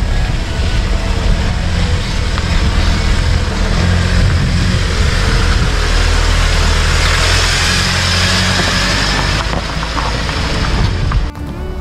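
Hyundai Porter II 4WD pickup's diesel engine running as the truck drives slowly, with a steady low engine note and tyre noise that grows into a gravel crunch in the second half; the sound drops away abruptly near the end.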